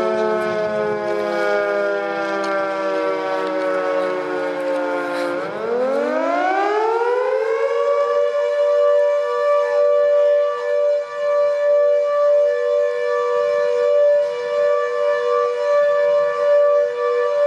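Fire station's roof-mounted call-out siren sounding for an emergency call. Its pitch sinks slowly, dips about five seconds in, then winds back up within a couple of seconds and holds a steady, slightly dissonant two-note wail.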